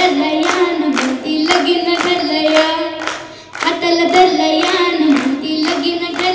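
A young girl singing a melody into a stage microphone, with clapping kept in time at about two claps a second. Both break off briefly about three and a half seconds in.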